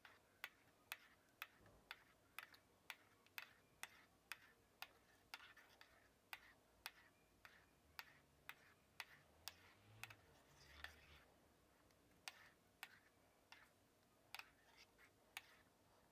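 Metal spoon stirring thick cheesecake batter in a ceramic bowl, the spoon faintly clinking against the bowl about twice a second, with a short break partway through.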